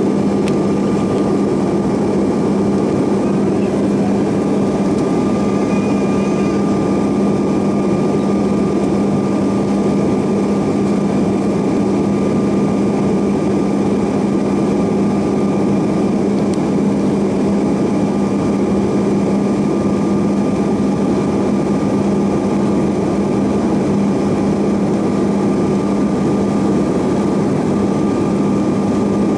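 Steady cabin noise inside a Bombardier CRJ-900LR airliner in flight: a loud rush of air with an unchanging low hum and a thin, higher, steady whine from its rear-mounted turbofan engines.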